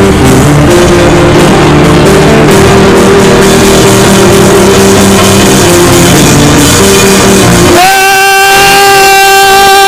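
Loud live church music, dense and heavily compressed, with a single long held note that starts near the end.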